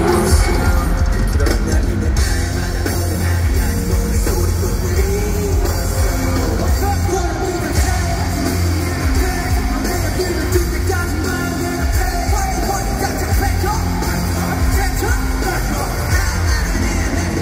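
K-pop boy group singing and rapping live over a loud backing track with heavy bass, played through an arena sound system.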